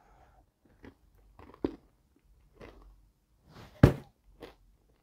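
A person biting and chewing dark-chocolate salted caramel pretzel bark: a run of short, sharp pretzel crunches, the loudest one about four seconds in.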